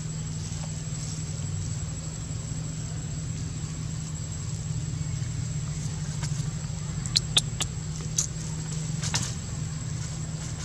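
A steady low droning hum, like a motor running, under a thin high whine. A handful of sharp clicks come in the second half.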